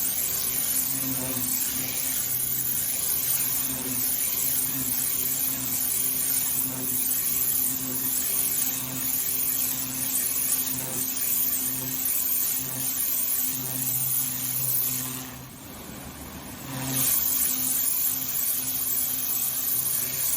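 Pressure washer running: a steady motor hum under the hiss of the high-pressure water spray. It dips briefly about three-quarters of the way through, then comes back.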